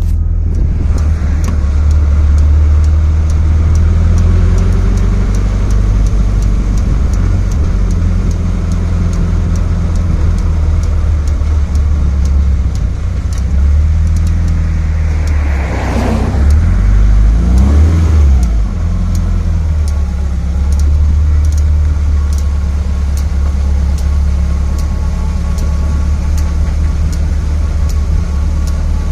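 Subaru running with a steady low hum and a regular, evenly spaced light clicking over it; the engine note rises and falls once about two-thirds of the way in.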